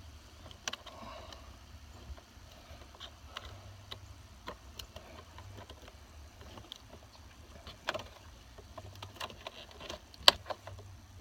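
Scattered small clicks and light knocks from handling steering-wheel trim parts and a wiring connector by hand, with one sharper click about ten seconds in. A low steady hum runs underneath.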